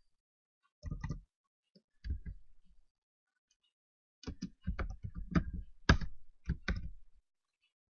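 Computer keyboard typing in runs of key clicks: a short burst about a second in, another at two seconds, and a longer, busier run from about four to seven seconds, with pauses between.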